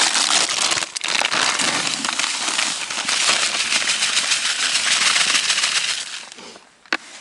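A plastic packet of fine-ground dry groundbait crinkling in the hands, then the groundbait pouring out of it into a plastic bucket in a steady, dense rustling hiss. The pour tails off about six seconds in, and a single sharp click follows near the end.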